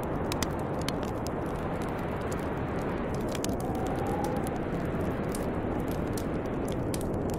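Steady snowstorm wind with a wood fire crackling and popping in irregular sharp snaps over it. About halfway through, a faint whistle in the wind rises and fades.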